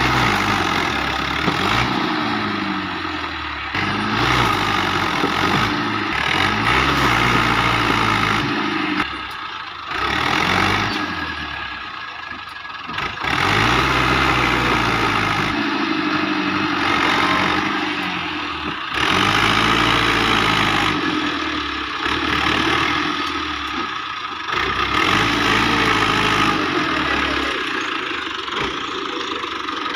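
Dabang 85 tractor's diesel engine working under load while uprooting a tree, its revs rising and falling again and again, with two brief drops in the middle.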